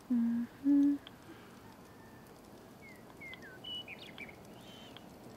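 A voice hums two short, steady notes in the first second, the loudest sound. From about three seconds in a small bird chirps several quick, sliding calls.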